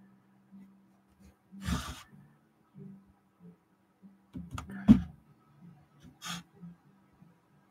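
Close-up breathing, with a couple of audible breaths about 2 and 6 seconds in. A few small knocks and one sharp click come around the middle, over a faint steady hum.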